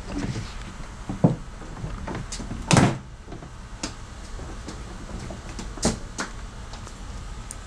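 Plastic grille trim on a Hyundai Palisade knocking and clicking as hands work its retaining clips loose: a handful of scattered knocks, the loudest a short clunk about three seconds in.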